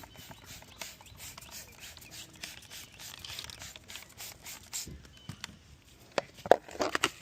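Repeated short hissing squirts of spraying while a washing-machine part is sprayed out, with a few louder sharp strokes near the end.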